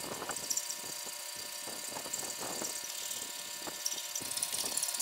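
Hand hacksaw cutting through a square steel bar held in a vise, the blade going back and forth in steady, repeated strokes.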